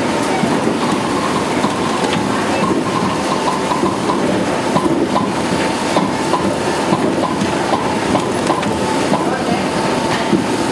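Rotary die-cutting machine for corrugated board running: a steady mechanical clatter with a thin constant whine and, in the middle stretch, a series of short regular clicks.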